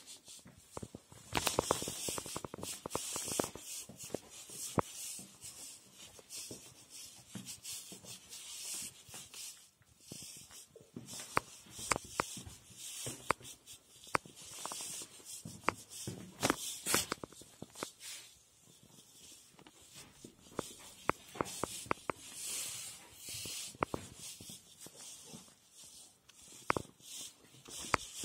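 Handling noise from a handheld phone camera being carried from room to room: irregular rubbing and scuffing, with many scattered sharp clicks and taps.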